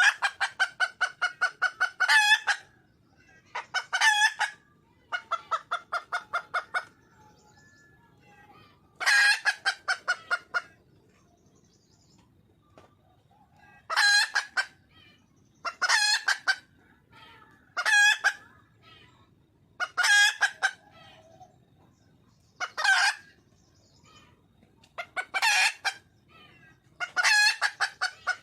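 Wild junglefowl hen calling: runs of rapid clucking notes, about eight a second, each run lasting from half a second to two seconds and repeated every couple of seconds.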